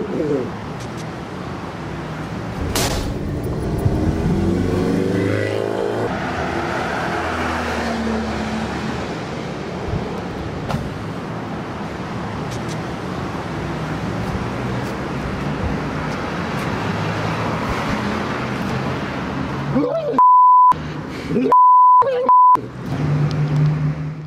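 Street traffic noise with cars going by. Near the end, three short, steady, high censor bleeps in quick succession blank out the sound.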